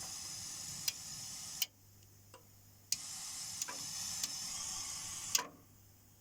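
Pink noise test signal from a Dolby Cat85 noise generator hissing through the cinema speakers, cutting off with a click about a second and a half in, coming back with a click a second later, and cutting off again near the end. In the gaps a faint steady hum is left.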